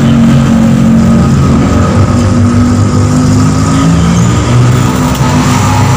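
A motor engine running close by, loud and steady, its pitch shifting up and down a few times.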